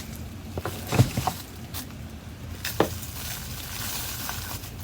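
Handheld vacuum attachments being handled and set down: a few light clicks and knocks, the clearest about a second in and near the three-second mark.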